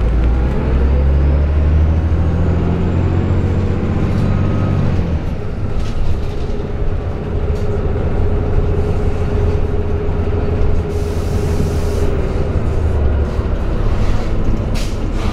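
Cummins ISM diesel engine of a 2000 Neoplan AN460A articulated bus pulling away, its note rising over the first few seconds, then settling into a steady run with a whine from the Allison B500R transmission. A brief hiss comes about eleven seconds in.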